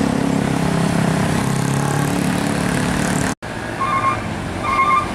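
Motor scooters' small engines running past, then after an abrupt break about three seconds in, a heavy diesel truck approaching with a short high beep repeating about once a second.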